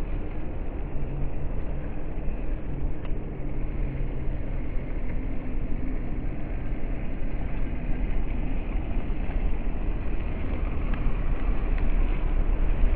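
Small electric RC crawler, a WPL C24 Toyota Hilux, whirring from its motor and gears as it crawls through tall grass, over a steady low rumble.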